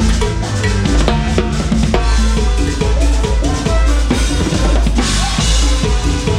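Drum kit playing a cumbia beat live, kick drum, snare and rimshots up front, with the band's pitched instruments playing along underneath.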